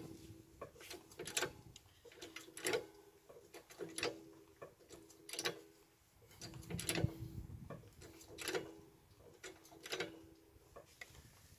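Hydraulic trolley jack being pumped to lift a van, about one handle stroke every second and a half, each stroke giving a sharp click with a brief squeak.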